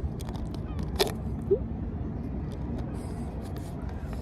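Steady low outdoor rumble, with two sharp clicks about a second and a second and a half in.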